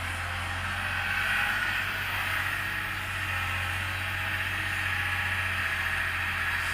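Excavator's diesel engine running steadily, a low drone with a higher whine over it.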